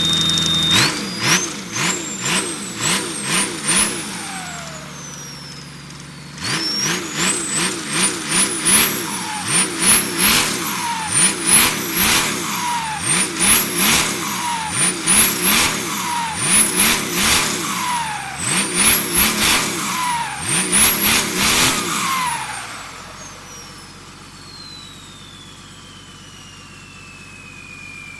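Turbocharged engine revved in repeated quick blips. The turbo's whistle climbs higher with each blip and a rapid chattering flutter, the "pente na turbina" turbo-singing sound, runs between them, with a short pause at idle after the first few blips. Near the end the revving stops and the turbo whistle slowly falls in pitch as it spins down.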